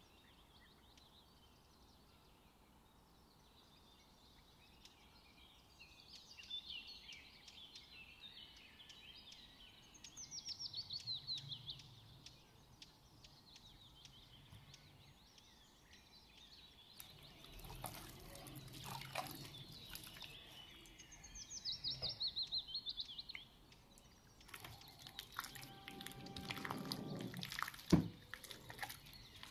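Wet squelching and slopping of gloved hands working pieces of red snapper in a thick spice batter, in two spells in the second half with a sharp knock near the end. Birds chirp in the background throughout.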